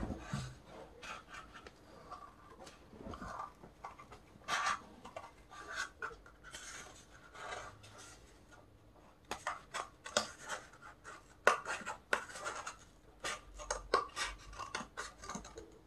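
Small scissors snipping through a cardboard toilet-paper tube: a run of short, irregular cuts, coming faster in the second half.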